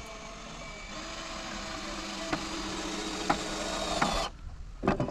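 Power drill running steadily, driving a screw into the framing, with a few clicks along the way, then stopping suddenly about four seconds in.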